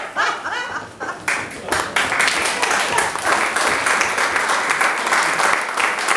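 Audience applause, breaking out about a second in and then holding steady.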